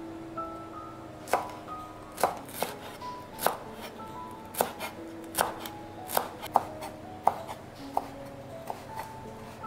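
A chef's knife chopping fresh herbs on a wooden cutting board: about a dozen sharp knocks of the blade on the wood at an uneven pace, starting about a second in. Light background music plays underneath.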